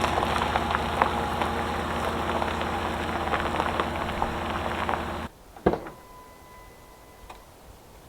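The 1998 Mitsubishi Delica's V6 petrol engine running steadily as the van rolls along, with a constant crackle from the tyres on the road surface. About five seconds in, the sound cuts off abruptly; then comes a single sharp click and a faint steady tone lasting about a second.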